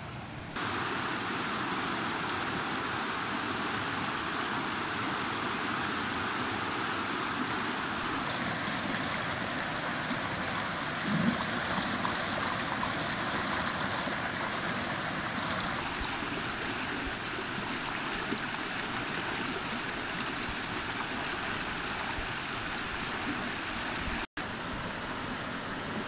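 Mountain stream rushing over and between rocks: a steady hiss and wash of flowing water. It gets louder about half a second in and cuts out for an instant near the end.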